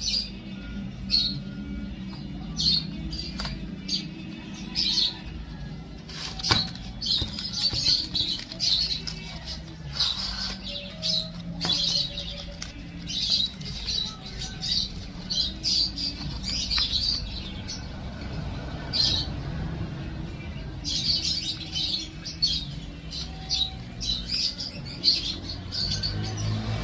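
Small birds chirping again and again in short high bursts, with a few knocks and rustles from a cardboard box and its paper inserts being handled, over a low steady hum.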